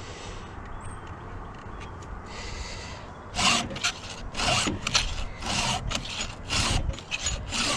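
Stihl 2-in-1 file sharpening a saw chain's cutters: a run of short rasping file strokes, about two to three a second, starting about three seconds in after a quieter stretch.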